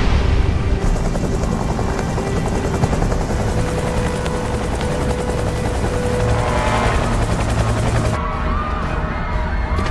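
Helicopter rotor and engine noise, a dense rapid chop, under dramatic orchestral film music. About eight seconds in the helicopter noise cuts off abruptly and the music carries on.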